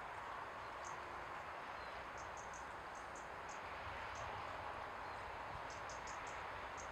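Quiet outdoor ambience: a steady soft hiss with small birds giving short high chirps, in little runs of two to four, several times.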